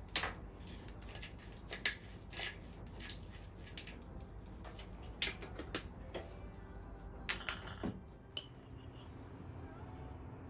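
Hand pepper mill being twisted, then a knife and fork on a plate: scattered sharp clicks and taps of kitchen utensils over a low steady hum.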